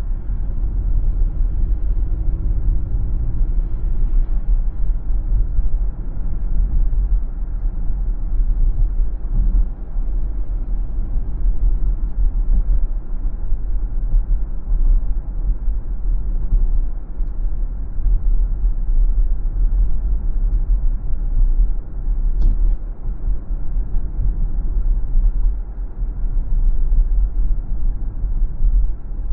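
Steady low rumble of a car driving: road and engine noise picked up by the dashcam. A faint tick sounds once about two-thirds of the way through.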